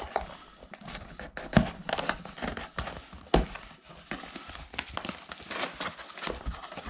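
Packaging being handled and opened: cardboard and plastic rustling and crinkling in irregular bursts, with two sharper knocks about one and a half and three and a half seconds in.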